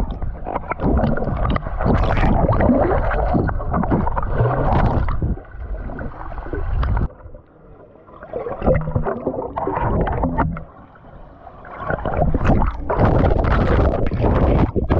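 Swimming-pool water sloshing, splashing and gurgling around a GoPro moved through the water, in uneven surges, with short quieter spells about seven seconds in and again about eleven seconds in.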